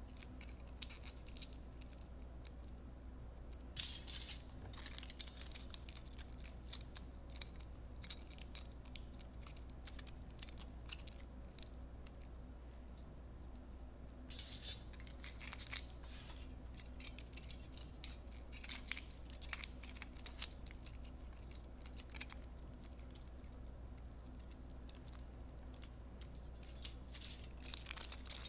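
Aluminium foil crinkling and crackling as strips are scrunched and rolled by hand into thin legs: a constant run of small crisp crackles with a few louder, denser bursts of crumpling, about 4, 14 and 27 seconds in.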